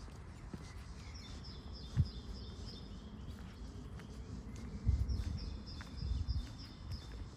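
A songbird sings the same phrase twice, each a run of about half a dozen evenly repeated high notes, over a steady low rumble. There are a few dull thumps, the loudest about two seconds in.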